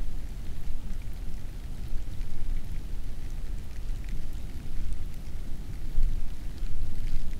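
Light rain with scattered raindrop ticks over a low, gusting wind rumble.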